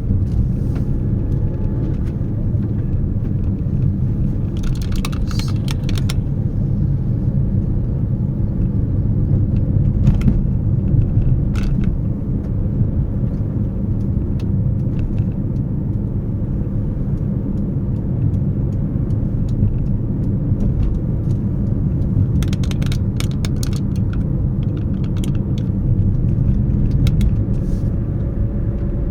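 Steady low rumble of a car on the move, with two short runs of clicks or rattles, one about five seconds in and one near the end.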